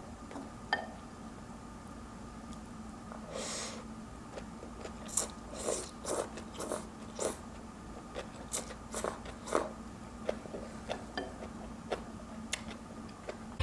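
Close-miked eating of pho noodle soup: soft chewing and small wet mouth clicks, scattered and irregular, mostly in the second half, over a faint steady hum.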